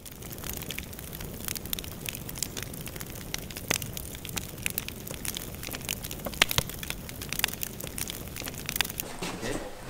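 Dense, irregular crackling and snapping over a steady low rumble, fading in at the start, with sharper pops scattered through.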